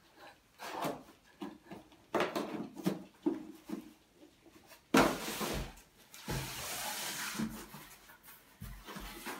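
Cardboard boxes and packaging being handled: scraping and rustling with short knocks, a loud knock about five seconds in, then a few seconds of rustling as a hand rummages in a large cardboard box.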